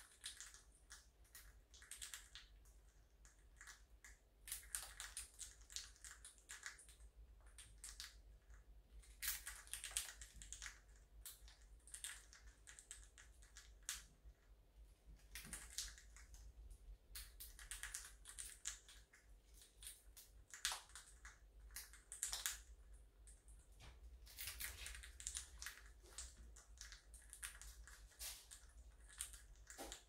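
Blue Quaker parrots (monk parakeets) crunching corn flakes in their beaks: faint, irregular crisp crackles every second or so.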